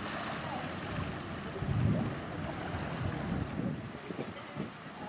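Wind buffeting the microphone in irregular low rumbling gusts over a steady outdoor hiss.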